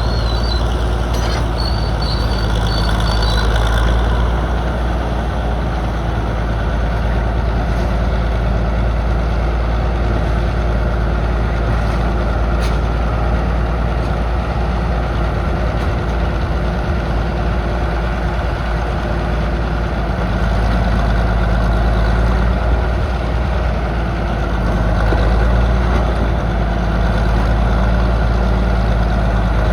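Engine of a vintage Northwest excavator running steadily while the machine works, a loud low drone that swells a few times as the load changes.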